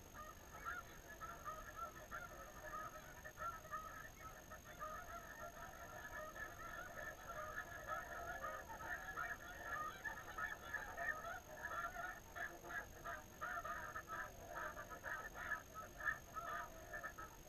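A large flock of snow geese calling together: a continuous chorus of overlapping high-pitched honks that grows busier about halfway through.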